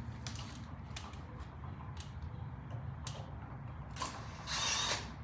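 Handling noise from work on an outlet's wiring: scattered small clicks and knocks, then a louder scraping rustle near the end, over a steady low hum.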